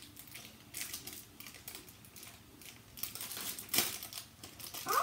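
A small crinkly wrapper being torn open and crumpled by hand: irregular crackles and rustles, with a sharper crack a little before four seconds.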